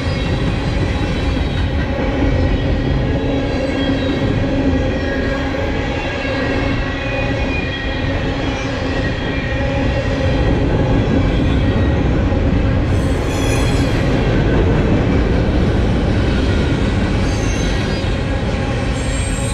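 Freight train gondola cars rolling past close by: a continuous rumble of steel wheels on rail, with steady squealing tones from the wheels running through it.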